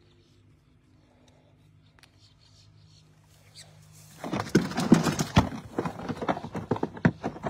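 Close handling noise on a phone's microphone: clothing and hands rubbing and knocking against the phone in a dense run of scrapes and knocks that starts about four seconds in, after a faint low hum.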